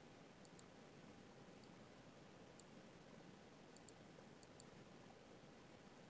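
Near silence: faint room tone with a few soft, high clicks, some in quick pairs.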